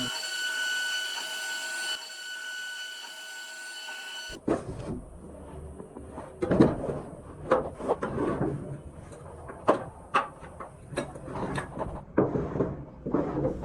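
CNC router running with a steady high-pitched whine for about four seconds, then it cuts off abruptly into irregular knocks and clatter.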